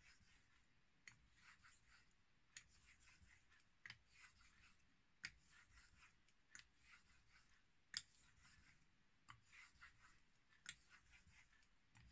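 Straight razor being honed on a Kitayama 8000-grit whetstone: faint, soft strokes of the edge across the stone, with a light click about every second and a half.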